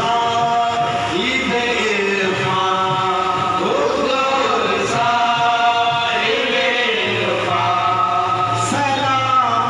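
Men singing Sufi devotional music (sama): a voice gliding up and down over steady held tones.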